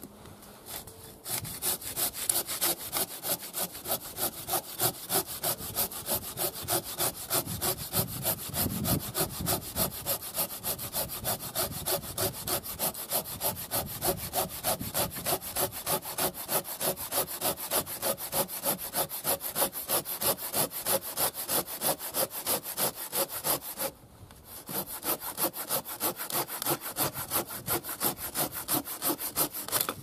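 Silky Zubat curved pruning saw cutting through a fallen log in quick, even strokes, a little over two a second. The sawing starts about a second in, breaks off briefly near the end and then carries on.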